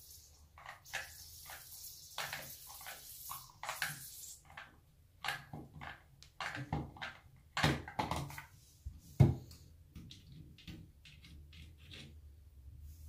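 Scattered clicks and knocks of shower valve parts being handled and worked loose as the valve is taken apart, the loudest knock about nine seconds in. Short spells of hiss in the first few seconds.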